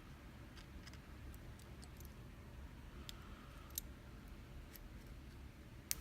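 Scattered small metallic clicks and taps of an Abus EC750 dimple lock's parts being handled as the lock is taken apart, with one sharper click near the end.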